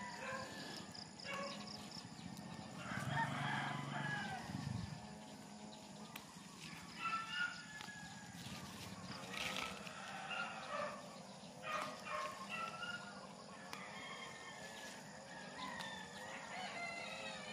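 A rooster crowing, one long call about three seconds in, with scattered short bird calls through the rest.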